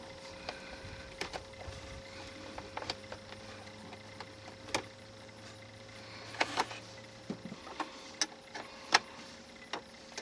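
Scattered small metallic clicks and clinks, about ten over the stretch, of a wrench and cable lug working a lead-acid battery terminal bolt as a connection is tightened. A faint steady hum runs underneath.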